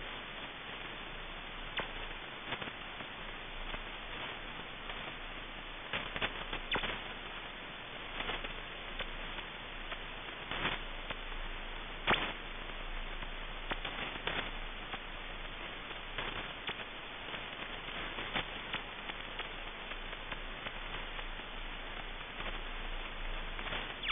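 Shortwave receiver audio near 5000 kHz: a steady hiss of band noise with irregular sharp clicks and crackles, some louder than others, over a faint low hum.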